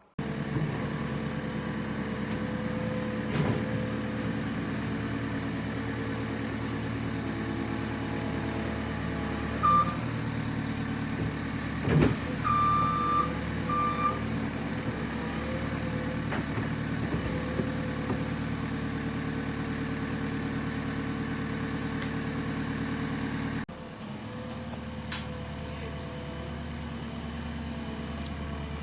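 A vehicle engine running steadily, with a few short high-pitched beeps about a third of the way in; the sound drops a little in level near the end.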